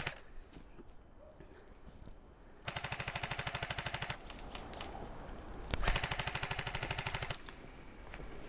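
Airsoft rifle firing on full auto: two rapid bursts of even clicks, each lasting about a second and a half, a few seconds apart.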